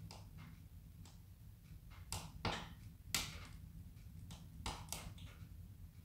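Wood burning in a stove: irregular crackles and sharp pops over a low steady rumble of the fire, with two louder pops near the middle.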